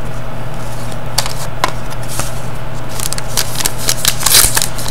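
Hockey trading cards being handled and a thin plastic card sleeve or pack wrapper crinkling. There are a few faint clicks at first, then a run of crackling rustles over the last couple of seconds, all over a steady low hum.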